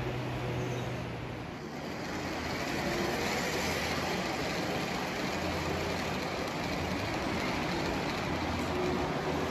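HO scale model trains running on the layout's track: a steady motor hum and rolling wheel noise, easing briefly about a second and a half in, then steady again.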